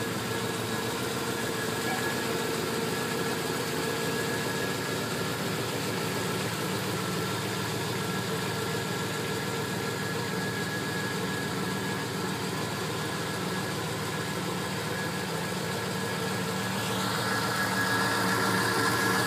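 A 1967 Pontiac Parisienne's 283 cubic-inch small-block V8 with a two-barrel carburettor idling steadily. It gets a little louder near the end.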